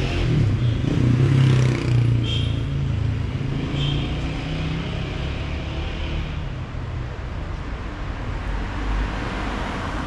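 Street traffic: a motor vehicle's engine running close by, loudest in the first couple of seconds and then easing off, with the tyre hiss of a car passing near the end.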